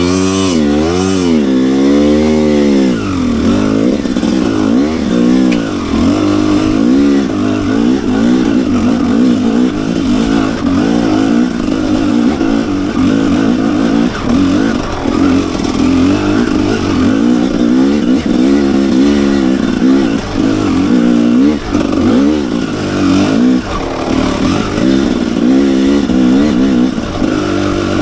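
Enduro motorcycle engine revving up and down sharply several times, then running under load with revs that rise and fall constantly.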